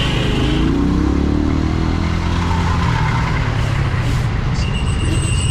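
Small single-cylinder motorcycle engine (AKT NKD 125) running under way in traffic, its note falling over the first couple of seconds as it slows. A steady high beep starts near the end.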